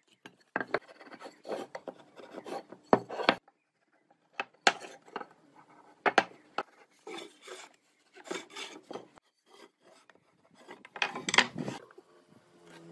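Wood being scraped or filed by hand in irregular strokes about a second apart, with a few sharp knocks among them.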